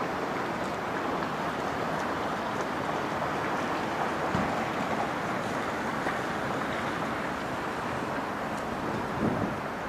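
Steady rushing background noise, with a brief faint knock about four seconds in and another near the end.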